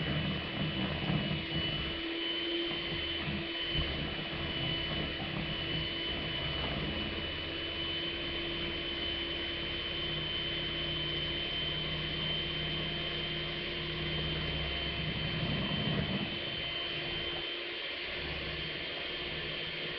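Electric hand mixer running steadily with a single beater, a constant motor whine, as it churns chunks of solid shea butter, cocoa butter and coconut oil in a plastic bowl. A low churning noise from the beater in the bowl rises and falls over the steady whine.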